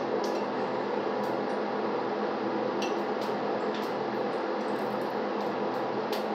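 Breaded green tomato slices frying in hot oil in a pan: a steady sizzle with scattered pops and crackles, over a faint low hum.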